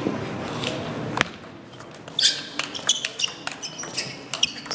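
Table tennis rally: the ball clicks sharply off the table and the players' bats. There is a single click about a second in, then from about two seconds in a quick run of hits, roughly three a second, echoing in the hall.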